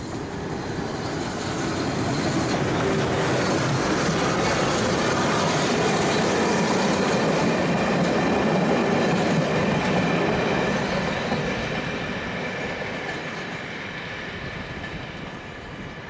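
Bulleid Light Pacific steam locomotive No. 34028 and its train of coaches running past. The sound swells over the first couple of seconds, holds at its loudest mid-way, then fades as the train moves away.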